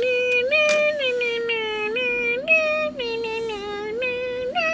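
A woman humming or singing a wordless tune in a high voice, with long held notes that step up and down in pitch, filling time while viewers are asked to subscribe.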